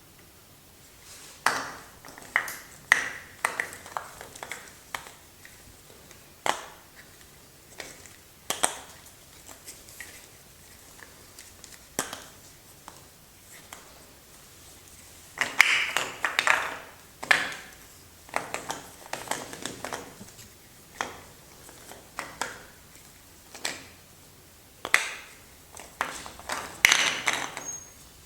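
Soap bar packaging being opened by hand: irregular sharp clicks and short crinkling, tearing bursts of wrapper and carton, busier about halfway through and again near the end.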